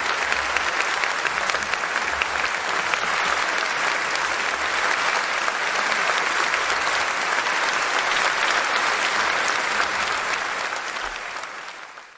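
Audience applauding: dense, steady clapping that fades out over the last second or so.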